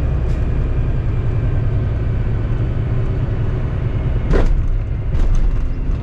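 Semi-truck engine running low and steady, heard inside the cab as the truck rolls slowly, with a short sharp burst of noise about four seconds in and a few smaller ones just after.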